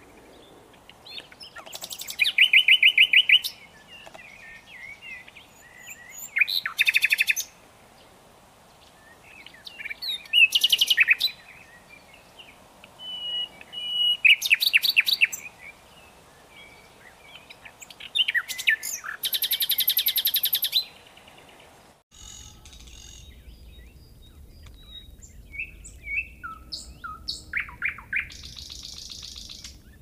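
Common nightingale singing: loud phrases of rapidly repeated notes and whistles, each one to two seconds long, separated by pauses of a few seconds. About two-thirds of the way through, the song becomes quieter and more scattered, with a fast trill near the end.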